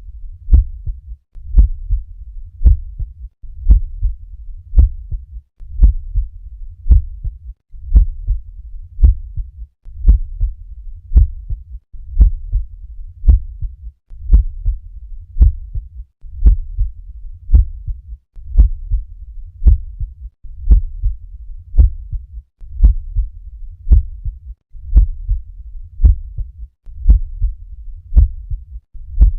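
Normal heart sounds at the cardiac apex, heard through a stethoscope: a steady, regular lub-dub rhythm of low thuds, the first and second heart sounds, with no murmur.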